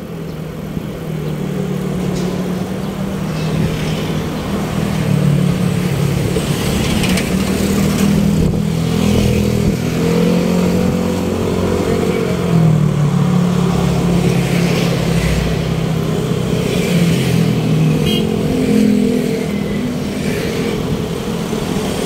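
Motor vehicle engine running with steady road noise, the engine note wavering up and down in pitch as it drives.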